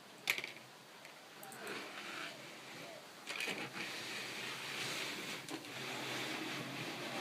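Plastic Lego AT-TE model being handled and turned around on a surface: a sharp click just after the start, then a few more clicks and light scrapes over a steady hiss.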